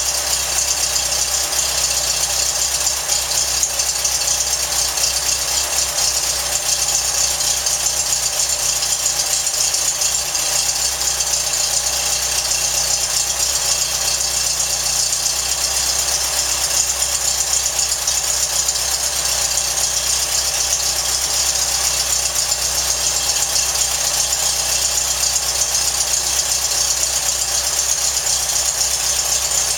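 Powerhaus 1914cc air-cooled VW flat-four buggy engine running steadily at idle on a test stand, holding an even speed with no revving.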